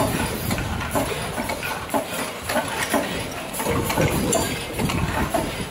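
Automatic case packer running: a steady mechanical din with frequent, irregular clacks and clinks as glass jars move along its conveyors.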